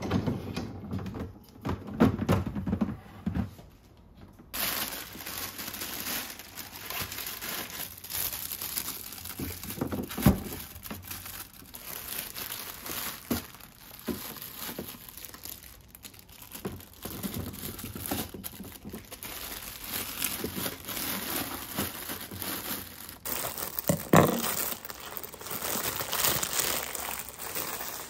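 Plastic bags crinkling and rustling as bagged vegetables are handled and packed into a refrigerator drawer, with a few knocks, the sharpest about ten seconds in and near the end.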